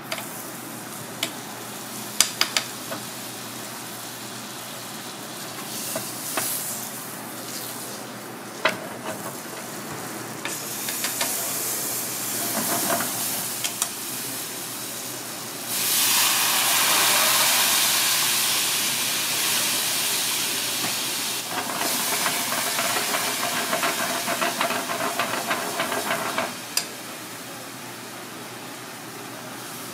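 Hot oil sizzling in a small cast-iron pan on a gas burner. A few sharp clicks come in the first seconds. The sizzle builds from about ten seconds in and is loudest for several seconds around the middle, then goes on with crackling spatters before cutting off suddenly a few seconds before the end.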